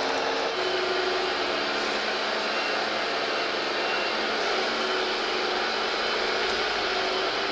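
Radio-controlled model tractor driving on gravel, its electric drive and gearbox giving a steady whine with a shift in pitch about half a second in.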